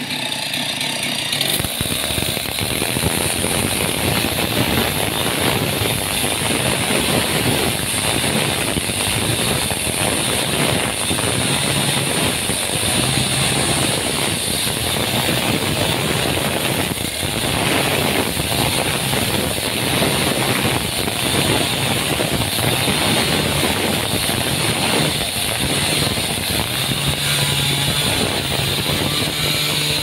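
Petrol chainsaw running under load as it cuts into a solid trembesi (rain tree) wood slab, its engine note rising and falling slightly as the bar is worked through the wood.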